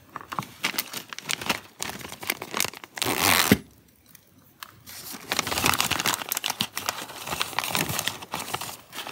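Clear plastic bag crinkling and rustling as hands open it and dig out small red plastic ID rings, with a louder burst of rustling about three seconds in.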